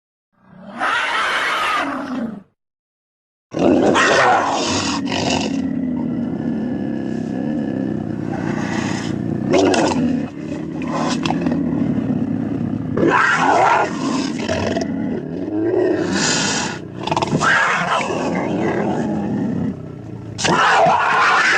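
Ceratosaurus roar sound effects: one roar lasting about two seconds, a second of silence, then a long stretch of overlapping growls and roars that rise and fall repeatedly.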